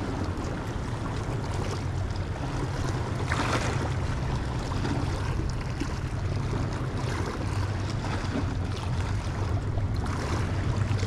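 Sea waves washing against shoreline rocks, with wind rumbling on the microphone; one louder surge of water about three and a half seconds in.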